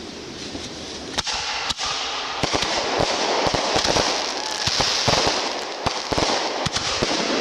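Consumer fireworks going off: a dense crackling hiss that builds about a second in, with many sharp pops and bangs scattered through it.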